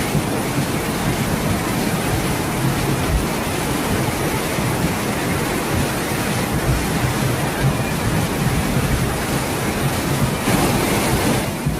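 Fast-flowing floodwater rushing loudly and steadily, a dense churning noise heavy in the low end.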